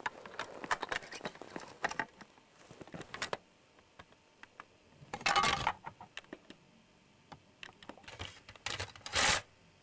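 Hard plastic toy pieces clicking, knocking and clattering against one another. Two louder rough clattering bursts come about five seconds in and near the end, each lasting about half a second.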